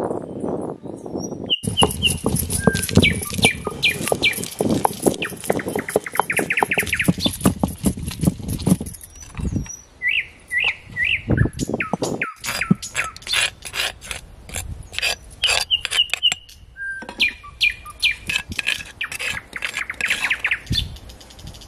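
Hand-turned stone grinder, a cylindrical stone pestle worked in a stone basin, grinding wet green masala with a dense run of irregular scraping and clicking strokes. Small birds chirp repeatedly in short falling notes over it.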